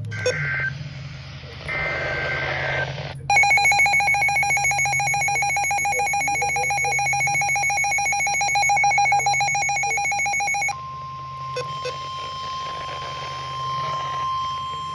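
Emergency Alert System activation tones: the last bursts of the digital SAME header data, then a loud, rapidly pulsing alert tone for about seven seconds. It gives way to a steady single-pitch weather-radio warning tone, with a low electrical hum underneath throughout.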